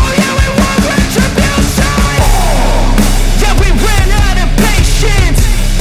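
Loud rock music with a driving drum beat, guitars and a sung or wailing melody line, thickening about two seconds in.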